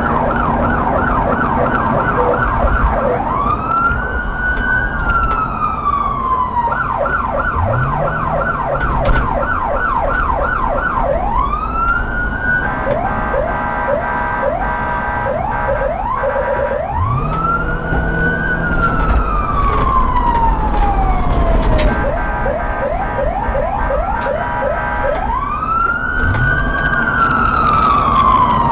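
Police car siren switching back and forth between a fast yelp and a slow wail: a quick run of rapid up-and-down sweeps, then one long rise and a slow fall, repeating several times.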